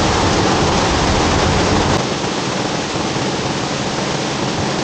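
Large waterfall plunging, a loud steady rushing roar of falling water. About two seconds in the deep low rumble drops away and the roar becomes slightly quieter.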